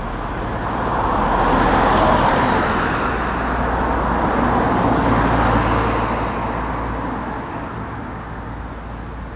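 Road traffic noise: a steady rush of tyres and engines with a low hum, swelling over the first couple of seconds and slowly fading toward the end.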